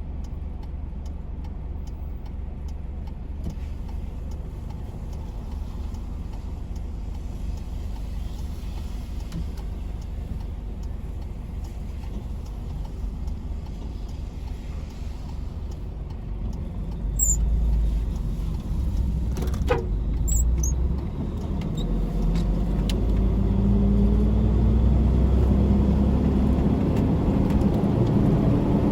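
Tractor-trailer truck's diesel engine running with a steady low rumble. It grows louder about two-thirds of the way through, and near the end its note rises as the engine revs up under acceleration, with a single sharp click partway through.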